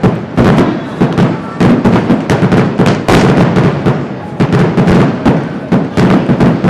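Fireworks going off in a rapid, continuous barrage of loud bangs, several a second, with hardly a gap between them.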